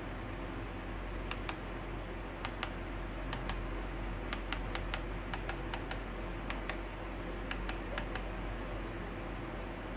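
Plastic buttons clicking as they are pressed to step through the menu, about twenty sharp clicks, often in quick pairs. Under them runs the steady whir of the mini LED projector's cooling fan.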